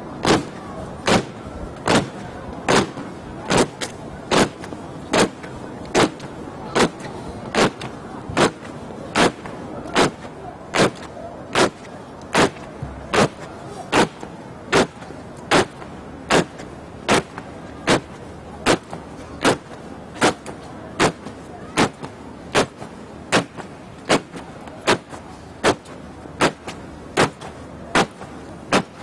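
Ceremonial flag guard marching in goose step, many boots stamping in unison. The stamps come at an even beat of about five every four seconds, with no music.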